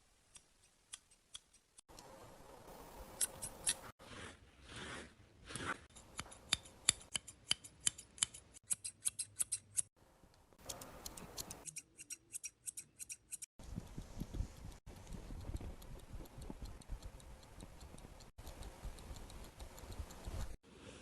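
Hairdressing scissors snipping hair during a bob cut, in quick runs of crisp snips of about three to four a second, with a softer stretch of rustling in the later part.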